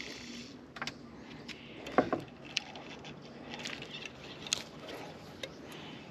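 Scattered small clicks and knocks from a spinning rod and reel being handled on a boat, with one louder thump about two seconds in.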